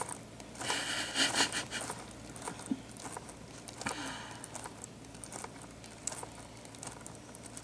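Faint rustling and crinkling handling noises in two short spells, about a second in and about four seconds in, over a low background.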